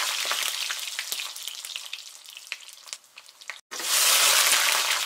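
Food frying in hot oil: a loud sizzle with crackling pops that dies away over about three seconds, cuts off, then starts again loud and fades once more.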